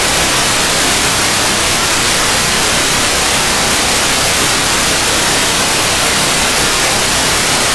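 Steady static hiss from an Airspy R2 software-defined radio tuned to the ArcCube-01 cubesat's 437.6 MHz downlink: receiver noise, with no packet or tone standing out.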